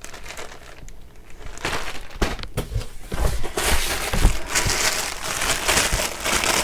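Packaging crinkling and rustling as packaged home-decor items are handled and moved, getting busier from about a second and a half in, with a few soft knocks.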